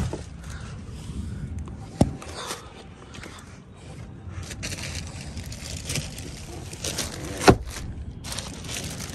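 Plastic protective covers on new car seats rustling and crackling as the seats are handled, with two sharp knocks, one about two seconds in and a louder one near the end.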